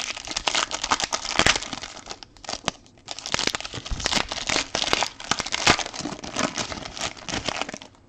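Trading card pack wrapper being torn open and crinkled by hand: a dense crackling rustle with a short lull about two seconds in.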